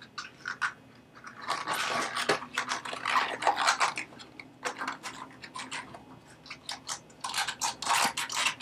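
Rubber drysuit wrist seal being stretched and slid over the hard plastic inner ring of a Santi Smart Seal: a run of short scrapes, rubbing and crinkling noises that come in clusters, busiest a second or two in and again near the end.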